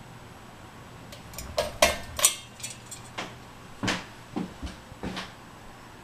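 Glass light bowl of a running Hunter Lexington ceiling fan clinking and knocking against its metal fittings as it is handled, about eight irregular knocks over a few seconds. A steady low hum from the fan motor runs underneath.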